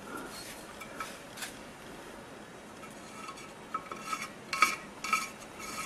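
Threaded mandrel of a hand rivet-nut (threaded insert) tool being unscrewed from a freshly crimped brass insert: a few faint metal clicks, then from about three seconds in a run of short metallic scrapes, about two a second, as the threads turn.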